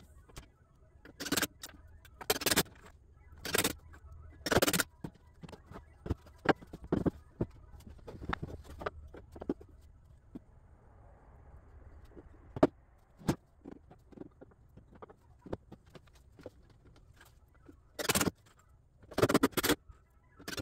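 Workshop assembly sounds: wooden frame parts and tools knocking, clattering and scraping as table frames are put together. The knocks come thick and loud in the first few seconds and again near the end, with a quieter stretch in between.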